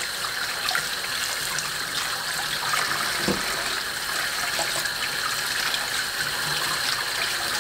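Kitchen tap running steadily into a stainless steel sink, the stream splashing over pieces of mackerel being rinsed by hand.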